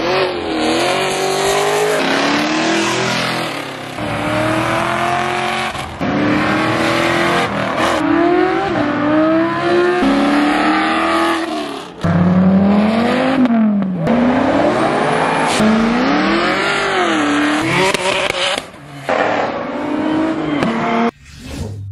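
Performance cars accelerating hard one after another, engines revving up and dropping back as they shift gears, in short clips cut together every couple of seconds.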